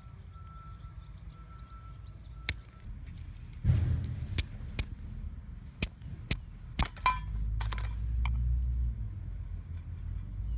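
Carbon steel fire striker struck down a piece of flint, about seven or eight sharp clicks, two of them close together, throwing sparks onto char cloth in a tin. Under them runs a low rumble.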